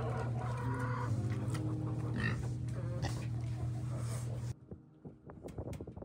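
Hens clucking and murmuring over a steady low hum. About four and a half seconds in the sound cuts off abruptly, leaving only faint clicks and knocks.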